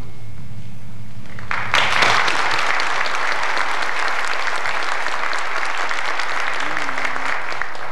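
Audience applauding: a dense patter of many hands clapping that starts suddenly about a second and a half in and stops just before the end.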